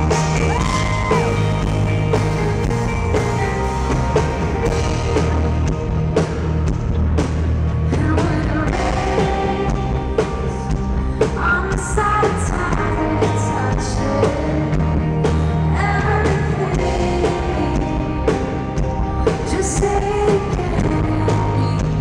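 A rock band playing live through a large arena's sound system: a woman singing at a microphone over keyboard, electric guitars, bass and drums.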